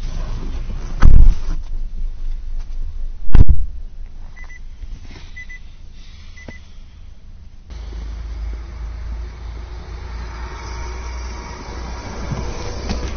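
A car under way at low speed, heard from inside: two loud knocks in the first few seconds and three short high beeps near the middle. About eight seconds in, a steady low rumble sets in.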